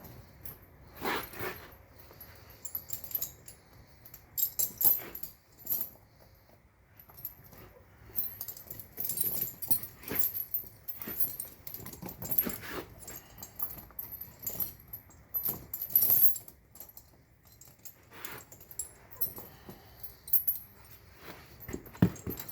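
Steel tire chain clinking and rattling in irregular bursts as it is handled and fitted around an ATV tire.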